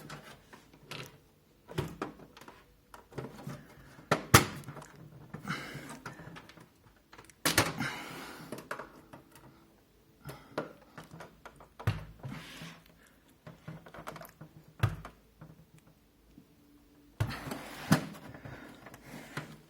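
A computer case's clipped front panel being pried and yanked against its stuck retaining clips: irregular knocks, clicks and creaks with a few stretches of scraping. The sharpest knock comes about four seconds in.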